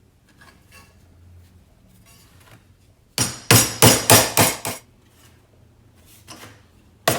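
Hammer pounding 18-gauge sheet steel held in a vise to fold over an edge: after about three seconds of faint handling, a quick run of about eight sharp strikes, then another strike near the end.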